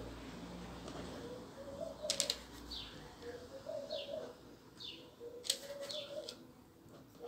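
A dove cooing in repeated low phrases about every second and a half. A few short, high, falling chirps and a couple of sharp clicks come in between.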